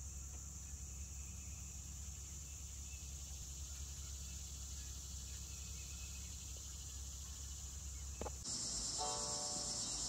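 Steady high insect chorus from a summer yard over a low rumble. A short knock comes about eight seconds in, then the insect chorus turns louder and soft music notes begin near the end.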